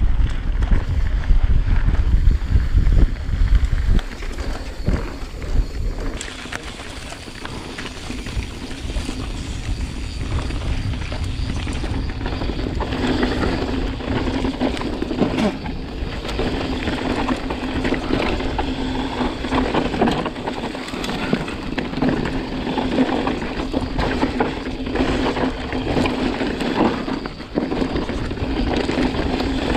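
Mountain bike descending a dirt singletrack heard from a handlebar-mounted camera: wind rushing over the microphone, tyres on dirt and the bike rattling over small bumps. Heavy low wind buffeting in the first few seconds, then a steadier rush with a low hum and frequent small knocks.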